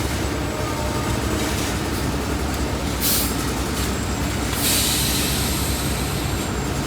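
Heavy diesel construction machinery running steadily with a low rumble, with a short hiss of air about three seconds in and a longer hiss near the end.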